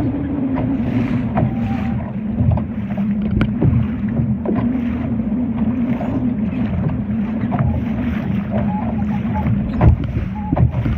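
Sounds of a Laser sailing dinghy under way: water and wind noise around the small boat, a steady low drone, and scattered light knocks.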